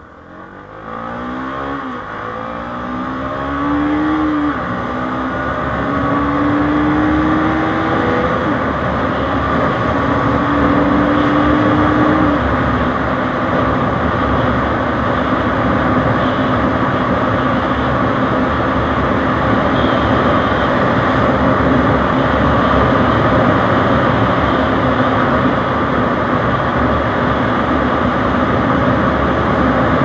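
Bajaj Pulsar NS 200's single-cylinder engine accelerating hard through the gears. Its note rises and drops back at each of several upshifts in the first dozen seconds, then holds steady at highway speed. A rush of wind and road noise grows with the speed.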